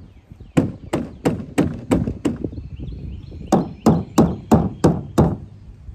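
A hand banging on a hollow plastic play structure: two runs of six sharp knocks, about three a second, with a pause of about a second between the runs.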